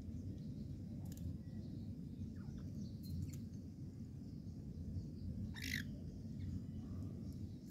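Scattered short, faint bird chirps and one louder, harsh squawk about five and a half seconds in, over a low steady rumble.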